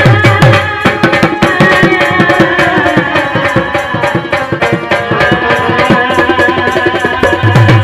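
Dhol barrel drum played fast with a stick and the hand in a Bengali folk music interlude, over a steady held melody line. Its deep bass strokes are heaviest in the first second and again near the end.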